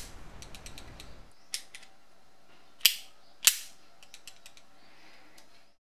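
Carabiner's twist-locking gate being worked by hand: light metallic ticks, then two sharp clicks a little over half a second apart midway, the gate snapping shut and its sleeve locking itself.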